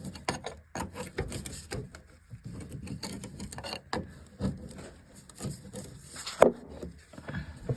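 Irregular knocks, clicks and rubbing scrapes of hands and tools handling metal parts in a car's footwell, with one sharp knock about six and a half seconds in.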